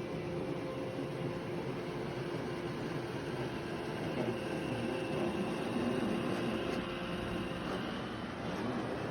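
Robot vacuum running: a steady whir of its motor and brushes, with a hum that wavers in pitch now and then.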